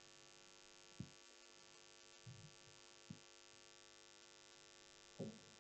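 Near silence: faint steady electrical hum, with a few faint short taps or knocks.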